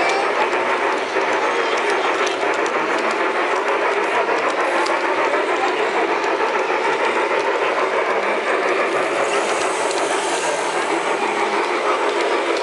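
LGB garden-scale model train running close by, its gear drive and wheels on the track making a steady, dense mechanical clatter. A small coaxial RC toy helicopter's rotors spin up on the flatcar and it lifts off.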